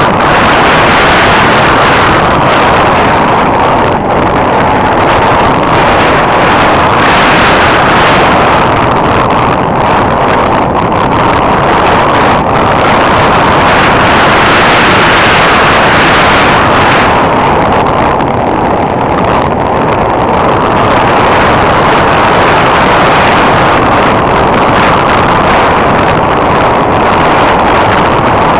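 Steady loud rush of airflow and motor/propeller noise heard on a camera mounted on an aircraft in flight. Its upper hiss swells and fades every several seconds.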